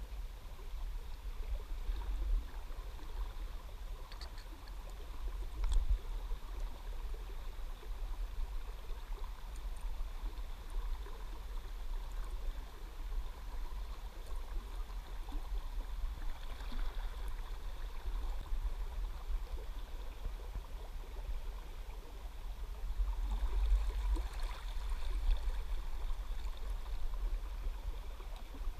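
Shallow river water flowing and gurgling around a wading angler, under a low, uneven rumble that grows louder for a few seconds near the end.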